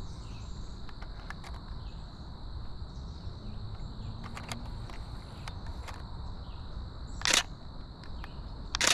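Canon Rebel T7i DSLR shutter firing: a loud shutter click about seven seconds in and another right at the end, with a few faint ticks before them. A steady high-pitched drone of insects runs underneath.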